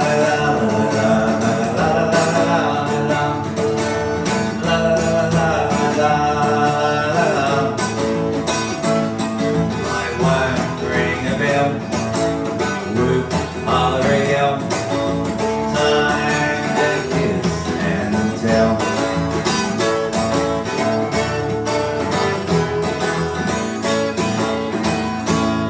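Live song on acoustic guitar with wordless sung vocals carrying on through the song's outro, dropping in loudness near the end.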